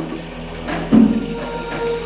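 A dull knock about a second in, then soft, sustained background music notes fade in.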